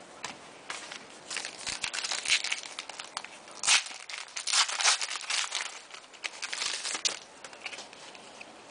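Trading-card pack wrapper crinkling and tearing as a football card pack is opened by hand, with irregular crackles that are loudest in the middle and die away about a second before the end.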